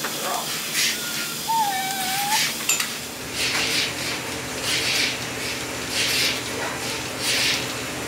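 Milking-machine sounds in a dairy barn: pulsators hissing about once a second over the steady hum of the vacuum system, with a few short high squeaks in the first two seconds.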